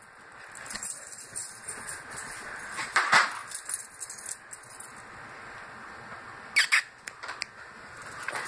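Small dog scuffling with a plush toy ball on carpet: rustling and light knocks, with a few sharp louder noises about three seconds in and again about two-thirds of the way through.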